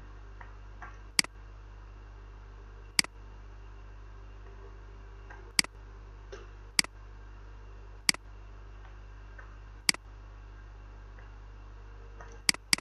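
Computer mouse button clicking: single sharp clicks every second or two, with two in quick succession near the end, over a faint steady low hum.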